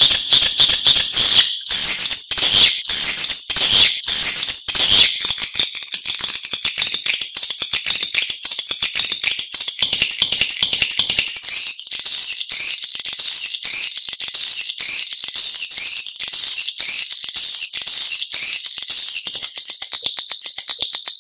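Swiftlet lure-call recording: dense, high-pitched twittering chirps laced with rapid clicking, the kind of call played to draw edible-nest swiftlets into nesting houses. About halfway through, the chirps settle into a regular repeating rhythm, a little faster than one a second.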